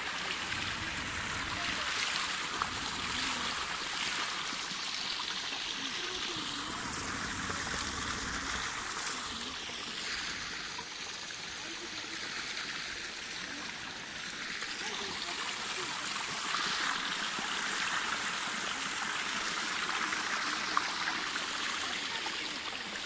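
Small mountain stream running and trickling over rocks, a steady rush of water, with a low rumble underneath for roughly the first eight seconds.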